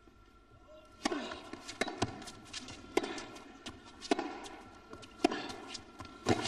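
Tennis ball struck back and forth by rackets in a rally: a serve about a second in, then sharp hits about once a second, each ringing briefly in a large indoor arena.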